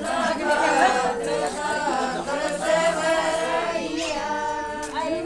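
A group of women singing a traditional Haryanvi wedding folk song together without instruments, several voices at once.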